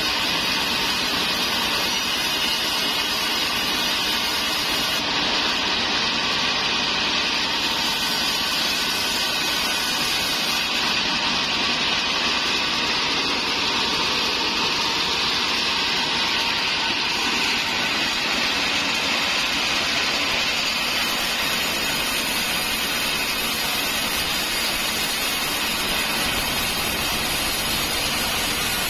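Large sawmill bandsaw running steadily and ripping trembesi (rain tree) planks as they are fed through the blade: a continuous hiss of blade and machinery.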